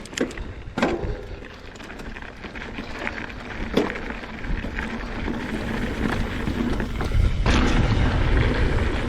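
Mountain bike riding down a dirt trail, recorded on the bike-mounted action camera: tyres rumbling over dirt with wind buffeting the microphone, and a few sharp knocks from the bike over rough ground. The rumble gets heavier near the end.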